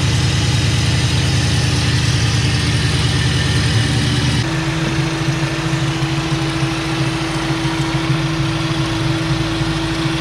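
Supercharged 4.6-litre V8 of a 2004 Mustang SVT Cobra running steadily, with a slight, barely audible squeal-chirp from the front accessory belt drive that a new tensioner has not cured; the owner suspects one of the aftermarket idler pulleys. About four and a half seconds in the sound changes and a steady hum-like tone comes in.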